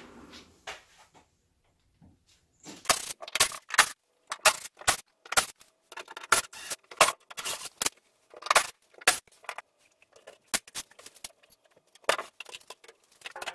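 A run of irregular short knocks and clatters with light metallic clinks as a board is worked loose and taken off a garage stud wall.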